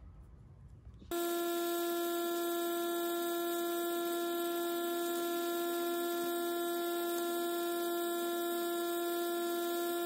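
Mini airbrush compressor running with a steady high-pitched hum, starting abruptly about a second in, with the hiss of air and paint from the airbrush as it sprays.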